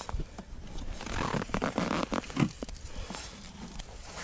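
Rustling and scraping with scattered small clicks: a person kneeling in snow and rummaging in an ice-fishing box.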